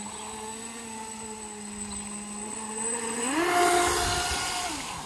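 UDI005 Arrow RC speedboat's brushless motor whining steadily at a distance. About three seconds in, the whine jumps up in pitch and grows loud as the boat passes close, with a hiss of spray, then it fades.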